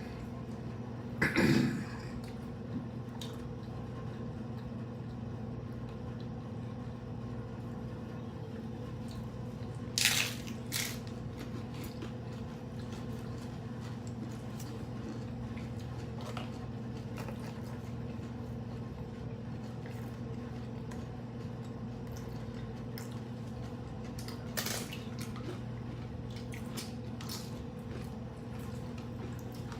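Eating crunchy tacos: scattered crunches and wet chewing sounds, the sharpest crunch about ten seconds in. A steady low hum lies under it.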